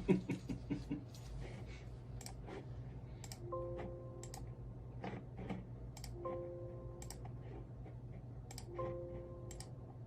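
Scattered computer mouse and keyboard clicks over a steady electrical hum, with a short electronic alert tone of a few steady notes sounding three times, about two and a half seconds apart, from the ballot scanning workstation.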